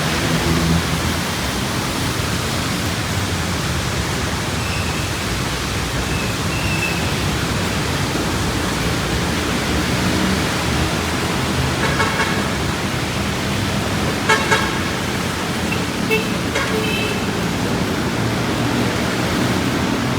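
Steady hiss of rain and road traffic on a busy street, with a few short vehicle horn toots in the second half, the loudest a quick double beep.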